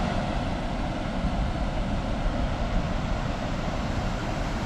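Steady rushing of creek water flowing over the streambed, an even noise with a low rumble underneath.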